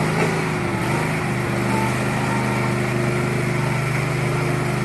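Backhoe loader's engine running at a steady speed.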